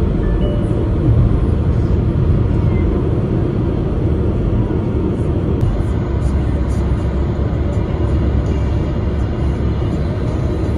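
Steady low road and engine noise inside a moving car's cabin at highway speed, tyres running on the road surface.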